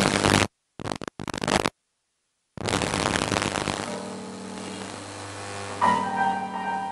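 Art song with piano accompaniment, recorded with heavy crackle and distortion. The sound drops out to silence several times in the first couple of seconds. A soprano voice comes in strongly near the end.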